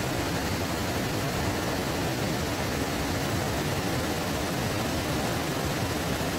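Waterfall in flood, its heavy flow of churning water making a steady, loud rush.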